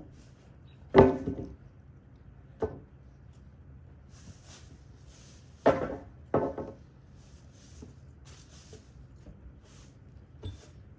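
A handful of sharp knocks and bangs, the loudest about a second in, two more close together a little past the middle, and a faint one near the end.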